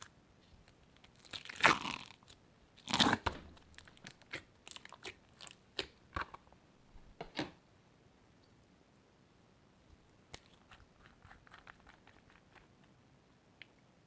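Slime being mixed by hand with crunchy add-ins, giving crunching and crackling. The two loudest crunches come about one and a half and three seconds in, followed by a run of sharp separate pops and crackles, then fainter crackling further on.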